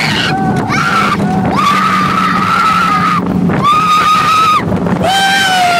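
A young girl screaming on a roller coaster: a few long high-pitched screams, the last falling in pitch near the end, over a steady low hum.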